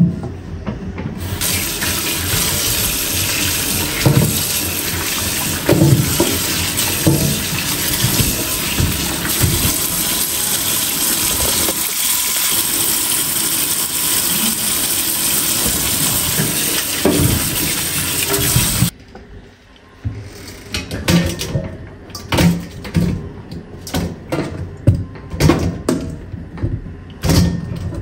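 Kitchen tap running into a stainless steel sink over a pile of oranges: a steady rush of water for about seventeen seconds that cuts off suddenly. After it, a run of short knocks and clatter as the wet fruit is handled and piled into a metal colander.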